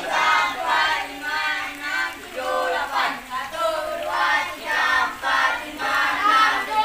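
A group of children's voices chanting in unison in a quick, even rhythm, about two calls a second, as young pencak silat students call out together during a floor exercise.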